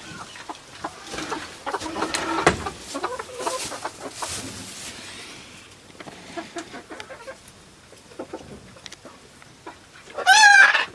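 Chickens clucking in scattered short calls, then a quieter stretch, and a run of loud, high calls near the end.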